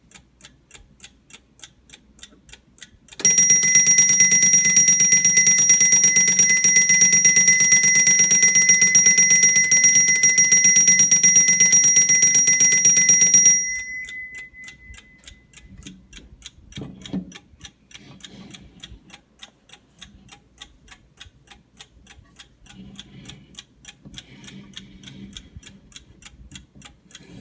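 Antique double-bell alarm clock ticking, then, about three seconds in, its alarm goes off: the hammer rings the bells loudly and continuously for about ten seconds. The alarm stops suddenly, the bell tone fades over a couple of seconds, and the ticking goes on, with a single knock shortly after.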